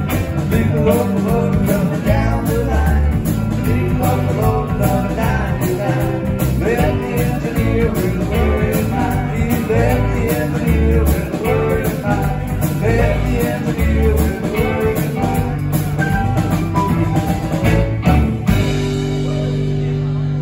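Live band of electric guitar, bass guitar, drums and keyboard playing an up-tempo country-rock jam. About eighteen seconds in the drums stop and the final chord is held, ringing steadily as the song ends.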